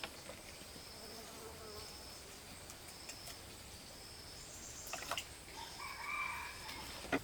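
Insect chirping, short high-pitched pulses repeating at about two a second. A few sharp clicks come about five seconds in and again near the end, and a short pitched call sounds about six seconds in.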